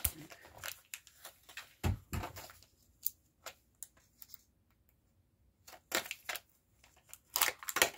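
Kinder Joy egg packaging being opened and handled: scattered clicks, taps and crinkles of plastic and foil wrapper, with a quiet pause in the middle and a quick cluster near the end.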